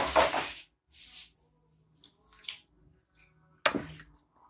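Scattered handling noises: a short rustle at the start, a brief hiss about a second in, a few faint ticks, and a sharper click near the end.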